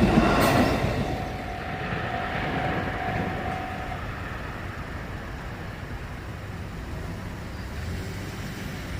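Tōkaidō Line train passing a railroad crossing. Its noise is loud at first, falls away within the first second or two and leaves a steady low rumble, with a faint steady tone for a few seconds.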